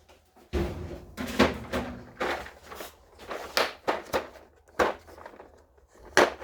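Metal hand tools and sockets clinking and knocking against each other and against the chainsaw's muffler and housing. The knocks come irregularly, several a second at times, with a brief faint ring after a couple of them.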